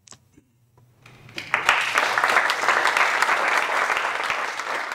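Audience applauding. The applause starts about a second in after a brief quiet, then goes on steadily as dense, rapid clapping.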